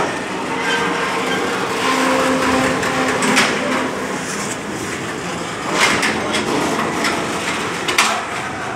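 Railway coal wagons being shunted into a wagon tippler: a steady rumble of rail and machinery noise, broken by four sharp metallic clanks spread through.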